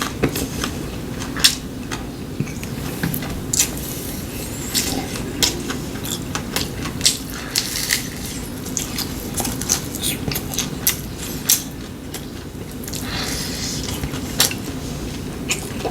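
Utensils clicking and clinking against bowls and plates during a meal, in many short, irregular taps.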